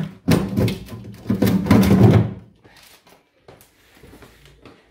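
Plastic freezer drawer being pushed and knocked shut, with rattling thunks during the first two seconds, then a few faint knocks.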